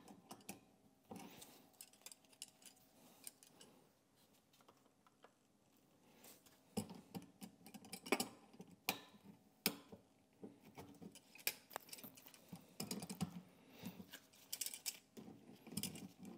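Pliers clicking and scraping against a rubber hose and its plastic fitting while a hose clamp is set, in scattered small clicks and rattles, with a quieter stretch of a few seconds near the start.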